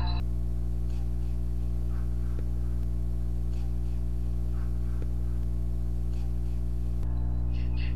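A steady low hum with faint scattered higher tones. About seven seconds in, eerie background music with a quick pulsing higher figure comes back.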